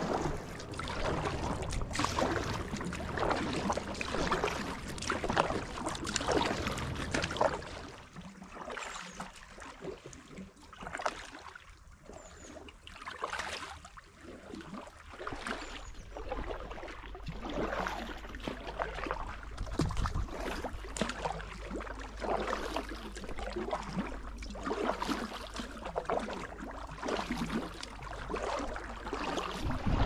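River water splashing and gurgling around a packraft in a stream of short, irregular splashes. It eases off for several seconds about a third of the way in.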